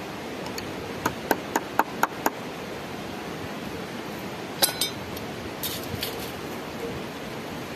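Six quick, light hammer taps on metal, about four a second, as a nail is driven into the pole frame. A few seconds later comes a single metallic clink as a tool is set down, and a brief rustle.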